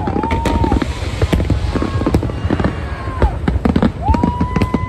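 Aerial fireworks going off in rapid succession: dense bangs and crackling shell bursts. A high whistling tone rises, holds and falls twice, the second time from about four seconds in.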